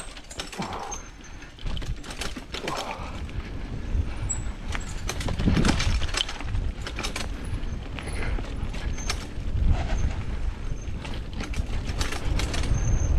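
Mountain bike riding down a rough trail: the chain and frame rattle and clatter over bumps, with a few short high squeaks, and wind rumbles on the microphone.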